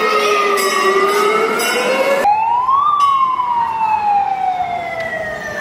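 Wailing fire-engine siren from a mock fire truck, its pitch sweeping slowly down and up. About two seconds in it jumps abruptly, then rises briefly and falls slowly.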